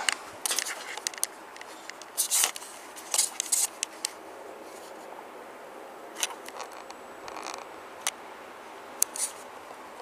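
Camera handling noise: irregular scratches and scrapes, about a dozen short ones bunched in the first four seconds and a few more later, as the camera is moved and rubbed.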